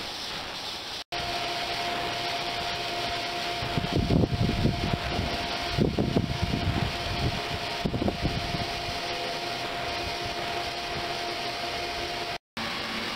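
Ultrasonic cleaning tank running, driven at 72 kHz and 260 W for most of it, heard as a steady hiss with a faint hum at one pitch. Low rumbling thuds come and go in the middle. The sound breaks off for a moment about a second in and again near the end.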